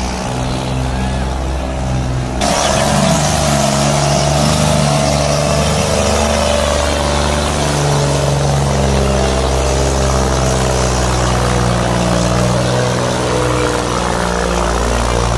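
Solis 5515 tractor's diesel engine running hard under load while dragging a heavy harrow through dry soil, a loud, steady engine note. About two and a half seconds in the sound changes abruptly at a cut between shots.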